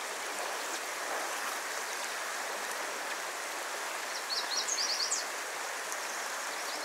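Small creek flowing steadily. A bit past halfway through, a bird gives a quick run of short, high chirps.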